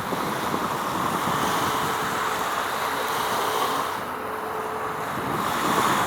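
Steady rushing noise of wind on the microphone and water, with a faint steady hum partway through.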